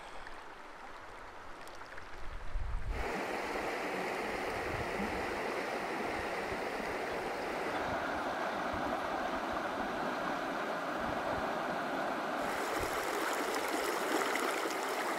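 Creek water flowing, an even rushing noise with no voice over it. It is quieter for the first three seconds, then jumps suddenly to a fuller rush, with slight shifts in tone at about eight and twelve seconds.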